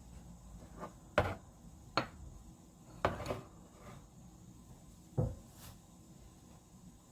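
Kitchen knocks on a wooden board: about five separate, irregularly spaced clacks of a knife or utensil, the first about a second in being the loudest.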